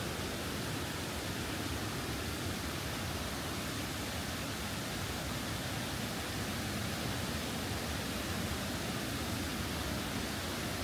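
Tortum Waterfall's falling water: a steady, even rush that does not let up.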